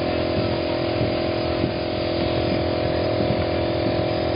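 Air compressor motor running with a steady hum, under the even hiss of a hose-fed paint spray gun spraying.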